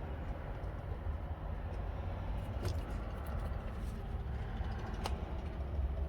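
A few sharp small clicks of a T25 bit and driver working at a screw in a steering column, over a steady low rumble.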